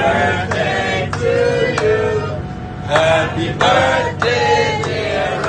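A man's voice chanting in a rising and falling, sing-song way, over a steady low engine hum.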